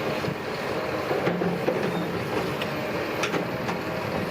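Tracked earthmoving machinery running: a steady diesel engine note with scattered metallic clanks.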